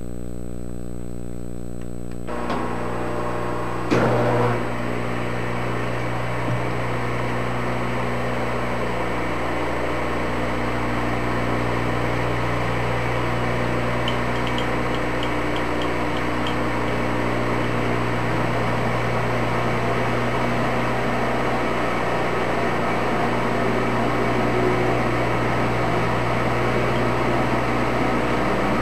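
Engine lathe running with the spindle turning. A steady hum gives way to a fuller, even whirring about two seconds in, with a single sharp clunk about four seconds in. The noise carries on steadily while a tailstock reamer is fed into the drilled hole to size it.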